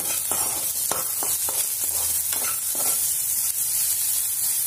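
Chopped onion, garlic, ginger and green chilli sizzling in hot oil in a kadhai as a metal spatula stirs and scrapes the pan, the tadka frying toward golden brown. The scraping strokes come several times in the first three seconds, then the sizzle goes on alone.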